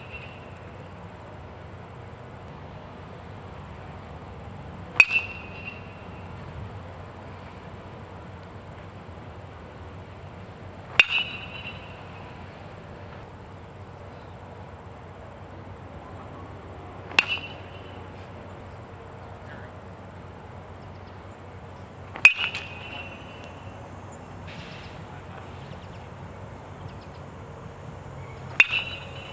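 A metal baseball bat hitting pitched balls five times, about six seconds apart. Each hit is a sharp crack with a brief high-pitched ping, followed a moment later by a quieter second knock.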